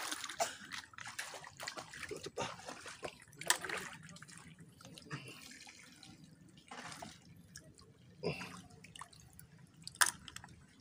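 Shallow stream water splashing as someone wades through it, with a few sharp irregular splashes over a soft trickle of running water.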